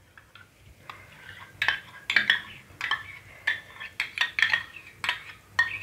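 A metal spoon clinking and scraping against a small steel bowl while ghee is scooped out into a kadai of hot oil. The sharp clinks begin about a second and a half in and repeat two or three times a second.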